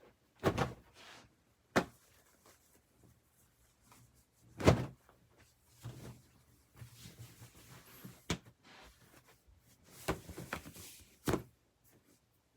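Irregular rustling and thumps of a person putting on clothes, with the loudest thump a little under five seconds in.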